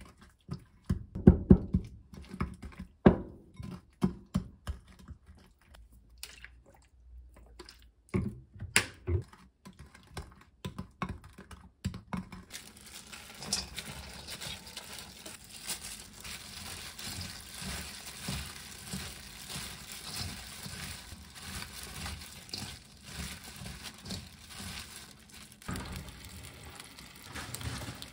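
Wooden spoon stirring a thick chili-paste dressing in a glass bowl, knocking and scraping against the glass in irregular taps. About twelve seconds in this gives way to a steady hiss with soft rustling as shredded cabbage and carrot are scraped from a cutting board into a stainless steel bowl.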